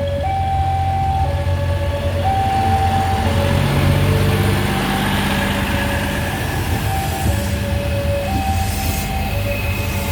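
A level-crossing warning alarm sounds a two-tone hi-lo pattern, switching about once a second, while a train passes the crossing. The train's low running rumble and rail noise swell through the middle.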